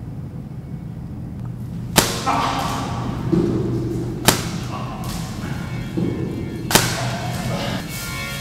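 Three sharp baton blows, each a crack with a short ringing tail, spaced about two and a half seconds apart, as a guard beats a man lying on the floor. Music comes in under the last blow and builds near the end.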